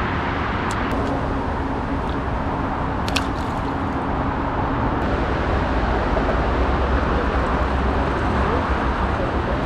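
Steady road traffic noise, cars passing, with a few faint brief clicks about a second and three seconds in.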